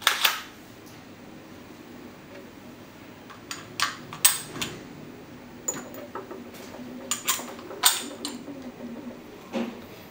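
Sharp metallic clicks and clacks from handling a Marushin Kar98k shell-ejecting gas airsoft rifle: a loud clack as the bolt is worked, then a string of light clicks as its metal shell cases are set down on a counter.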